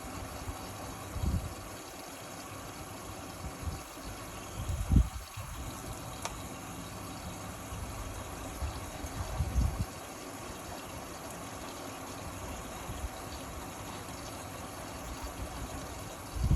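Indesit Innex XWA 81252 washing machine running a wash cycle: a steady hum with water noise in the drum, broken by three low thuds.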